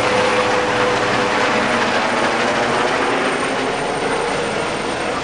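Trauma helicopter running, a loud steady rush of turbine and rotor noise with a steady hum, easing off slightly near the end.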